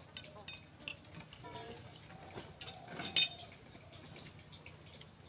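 Spoons clinking and scraping against plates during a meal: a few sharp clinks, the loudest about three seconds in.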